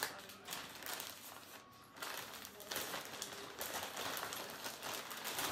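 Clear plastic packaging bag crinkling and rustling in irregular crackles as it is handled and opened.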